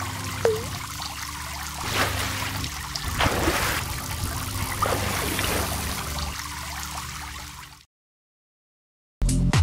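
Water sound effects, splashing and gurgling, over a steady low drone. The sound cuts off abruptly about eight seconds in, and after a second of silence electronic music with a heavy beat starts at the very end.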